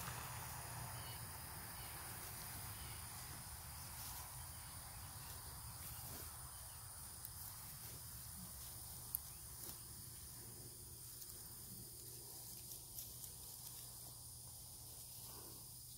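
Steady, high-pitched chorus of insects in the background, with a few faint clicks, the sharpest about nine seconds in.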